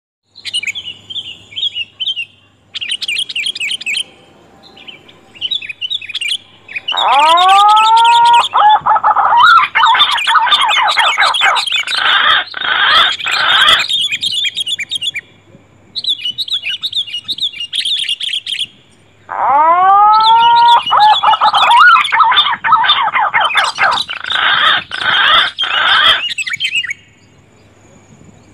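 Edited bird-lure recording of green pigeon (punai) and sooty-headed bulbul (kutilang) calls: short high chirping phrases, with two long runs, about seven and nineteen seconds in, that open on rising whistles and turn into dense loud chattering. A faint steady hum sits under the quieter gaps.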